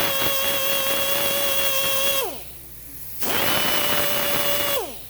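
A small power tool spinning a dull paper sanding wheel with a steady whine, used to grind excess JB Weld out of a brake wheel cylinder bore. It winds down about two seconds in, starts again a second later, and winds down again near the end.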